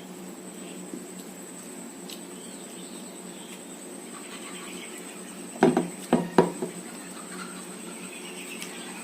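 A plate or bowl clanking: a few sharp knocks in quick succession, about five and a half to six and a half seconds in, over a steady low hum.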